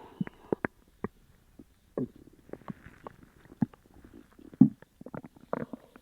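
Human stomach gurgling with many short, irregular pops and squelches, the loudest a low gurgle about three-quarters of the way through: an upset stomach from eating sugar-free gummies.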